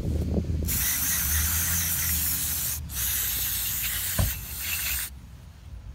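Pressurised spray hissing into a carburetor to blast dirt out, in two long bursts of about two seconds each with a brief break between them. A short knock comes about four seconds in.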